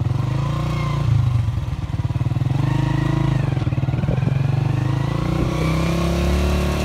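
Motorcycle engine running steadily while the bike rides along, its low hum wavering slightly in pitch, with a brief knock about four seconds in.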